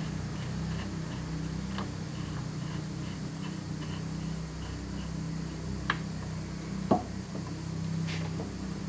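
A few short clicks and knocks as a rubber hose is pushed onto a catch can fitting and handled, the loudest knock about seven seconds in, over a steady low hum.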